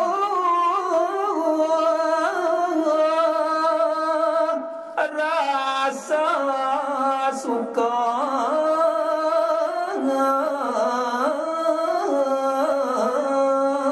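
A single voice singing a Balinese geguritan verse unaccompanied, slow and melismatic, with long held notes ornamented by wavering turns; the line breaks off briefly about five seconds in.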